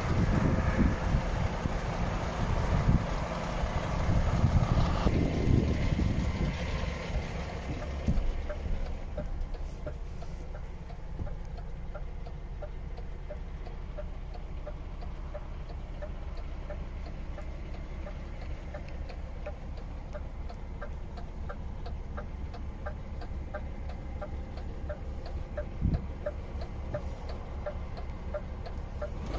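DAF XF 480's PACCAR MX-13 straight-six diesel idling. It is louder for the first several seconds, then quieter and muffled from inside the cab, where a steady ticking runs over the idle.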